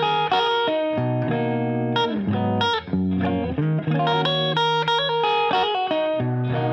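Intro music led by electric guitar, with held chords that change every second or so.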